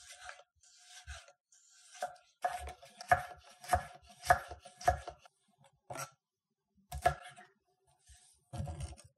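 Chef's knife julienne-cutting carrot strips on a wooden cutting board: a few soft slicing strokes, then, from about two and a half seconds in, a run of sharp knife strikes on the board a little over half a second apart, followed by a few more spaced chops.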